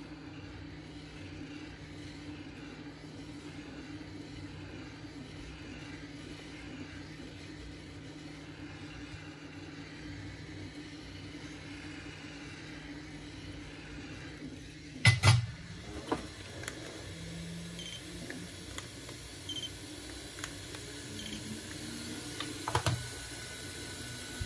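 Hot air gun blowing steadily while it heats the adhesive under a phone's back glass. About two-thirds of the way through comes a loud clunk, then a smaller one, light clicks and taps, and another clunk near the end.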